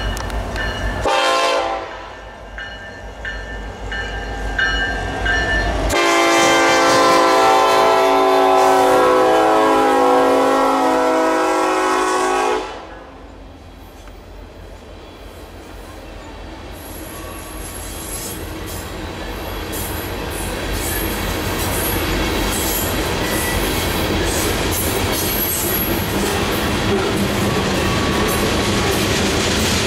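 Nathan K5LLA five-chime air horn on a BNSF SD70ACe locomotive sounding a short blast, then one long blast of about six seconds. Then the coal train's hopper cars roll past with a growing, then steady clatter of wheels over rail joints and a faint high wheel squeal.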